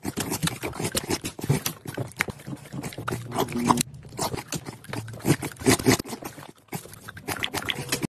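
A dog licking and snuffling right against the phone's microphone: a fast, irregular run of close-up smacks and sniffs.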